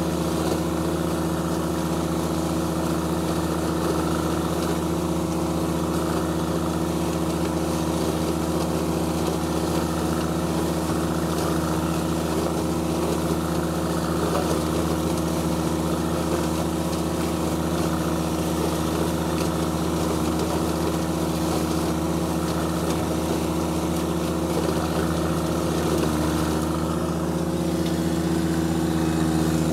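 John Deere 1025R compact tractor's three-cylinder diesel running steadily under load, driving a rear-mounted mower through dry corn stalks. The pitch holds even throughout, with only a slight shift near the end.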